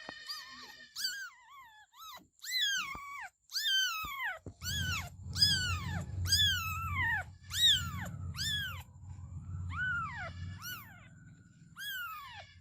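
Kitten meowing over and over: high-pitched cries that each fall in pitch, about one or two a second, with a short lull around nine seconds. A low rumble runs underneath from about four and a half seconds.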